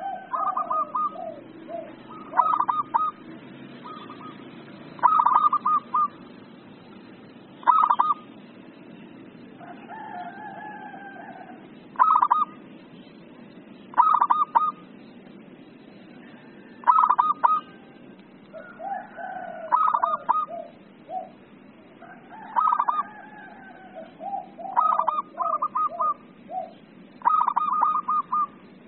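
Zebra dove (perkutut) singing: repeated short phrases of rapid staccato cooing notes every two to three seconds, with softer, lower warbling calls in between.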